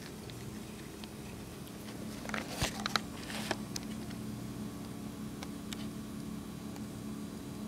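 Quiet room tone with a steady low hum, and a few faint clicks between about two and three and a half seconds in.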